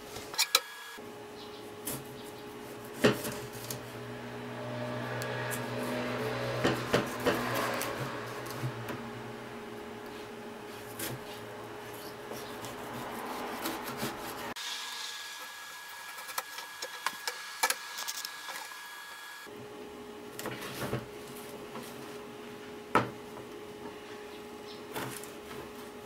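Kitchen knife slicing through a ripe tomato on a plastic cutting board: soft scraping cuts, with now and then a sharp tap of the blade on the board, over a steady low hum.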